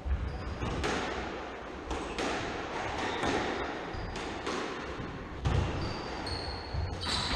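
Squash rally: the ball cracking off rackets and walls every second or so, with the players' footsteps and short shoe squeaks on the wooden court floor.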